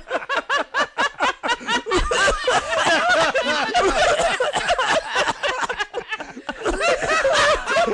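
Hearty laughter: a fast run of short repeated 'ha' bursts, easing briefly about six seconds in before picking up again.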